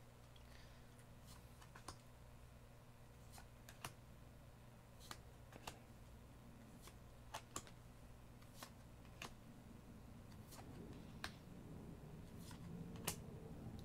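Faint, irregular soft clicks and flicks of trading cards being slid one by one from the back to the front of a freshly opened booster pack, about one every second or so.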